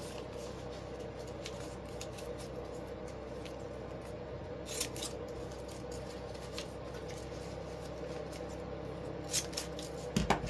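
Scissors snipping poly ribbon to cut dovetail notches into the bow's tail ends: a few short cuts, most clearly about halfway through and near the end, over a steady low hum.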